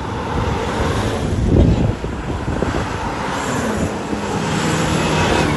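A convoy of Toyota Land Cruiser SUVs drives past close by. Engines and tyres swell loudest about a second and a half in as one vehicle passes, and the next vehicle's engine hum follows, with wind buffeting the microphone.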